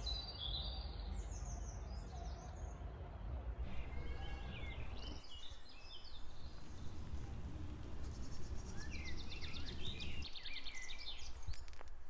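Songbirds singing, a run of short chirps and trills from more than one bird, over a steady low rumble.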